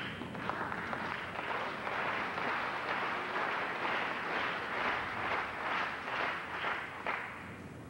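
Crowd applauding, swelling over the first second or so and dying away near the end.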